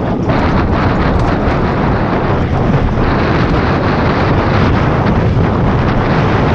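Wind buffeting the microphone of an action camera on a mountain bike riding fast downhill. Under it is the steady rumble of the tyres rolling over a dirt and stone trail, with small knocks as the bike goes over bumps.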